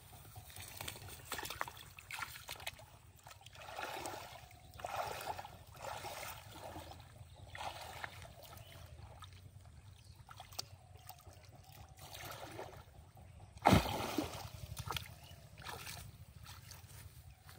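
Shallow pond water splashing and sloshing in irregular bursts as a person wades barefoot through the weedy edge and works his hands through the water, with one loud sudden thump about fourteen seconds in.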